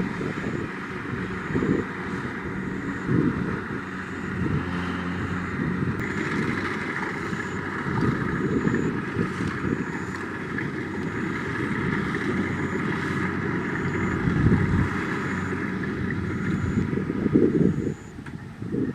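Kubota DC-70 Plus combine harvester running steadily under load while it harvests rice: a diesel engine with the whirring and rattling of the threshing machinery. A faint high tick repeats at a regular pace, and the sound drops away briefly near the end.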